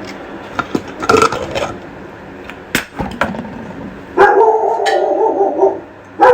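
Pet dog begging for its food: a short yelp about a second in, then a long whine about four seconds in, with a couple of sharp clicks between them.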